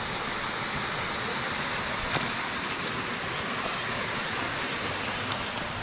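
Steady rush of the tunnel waterfall's falling water, with one faint click about two seconds in.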